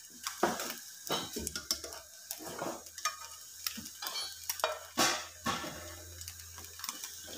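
Slotted spatula scraping and tapping against a non-stick frying pan in irregular strokes, the loudest about five seconds in, over a faint sizzle of an egg frying in a little oil.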